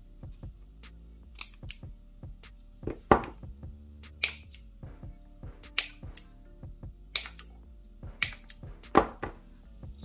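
Small pocket scissors snipping through ribbon and then a piece of rubber tubing: a crisp snip about every second, a few of them sharper and louder. Soft background music runs underneath.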